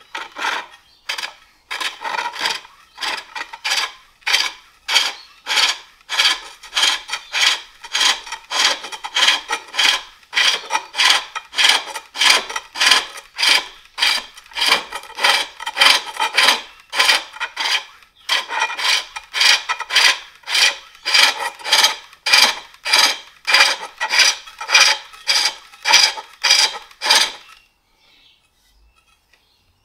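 Hook tool shaving the inside of a wooden bowl on a foot-powered pole lathe: a rasping cut on each down-stroke of the treadle, in a steady rhythm. The strokes pause briefly about two-thirds through and stop a little before the end.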